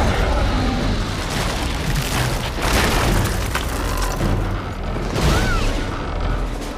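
Film action sound effects: continuous heavy rumbling with deep booms and crashes, the destruction sounds of the monster house on the rampage. A brighter crash comes about two and a half seconds in.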